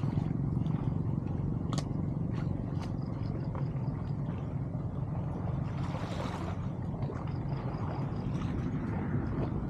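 Water splashing and sloshing as weeds and debris are pulled by hand out of a clogged culvert mouth in shallow canal water, with scattered small splashes and one larger splash about six seconds in, over a steady low rumble.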